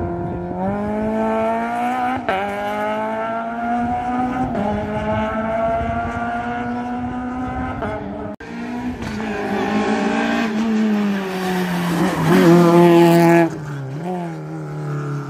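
Race car engine pulling hard through the gears: its pitch climbs, drops at each of three upshifts, then falls as it eases off. Near the end comes a louder burst with tyre squeal that cuts off suddenly.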